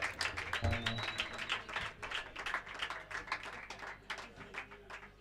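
Small audience applauding, a scatter of hand claps that thins and fades away near the end.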